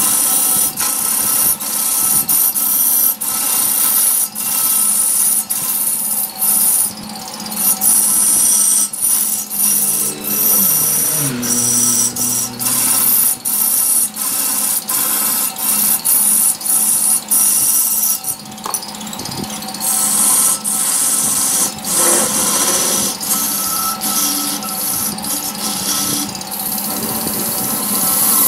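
Wood lathe turning a large log while a long-handled cutting tool shears off chips: a steady, high cutting hiss over a low hum. The hiss breaks off briefly many times, about once a second, as the tool leaves the wood.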